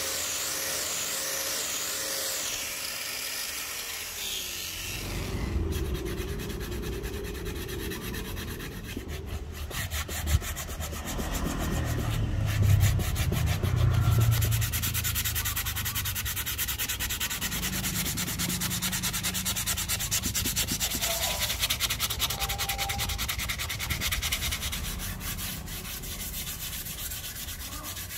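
A small power tool whines and winds down about five seconds in. Then a padauk wooden axe handle is hand-sanded, a continuous scratchy rubbing of abrasive on wood, louder for a stretch near the middle.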